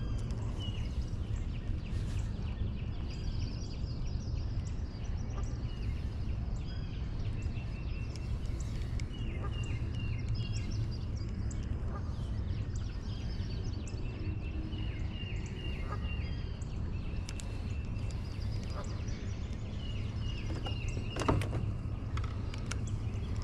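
Electric trolling motor running steadily with a low hum as the boat moves. Birds chirp in short repeated calls, and there is a single knock near the end.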